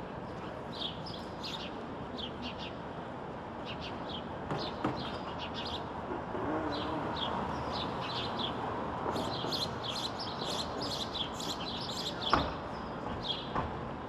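House sparrows chirping: short repeated chirps that come thickest about nine to eleven seconds in, over a steady background hum. A single sharp click near the end is the loudest sound.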